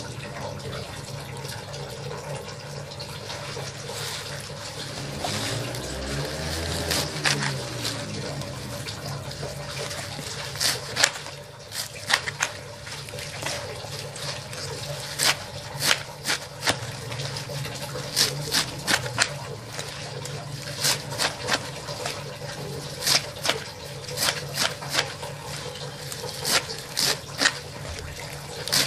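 Knife chopping leafy greens against a metal tray: irregular runs of sharp taps, often several in quick succession, from about a third of the way in, over a steady background hum.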